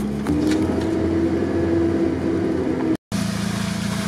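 Off-road vehicle engine running steadily while driving. Its note changes abruptly a moment in, and the sound cuts out for an instant about three seconds in, then carries on with a different steady note.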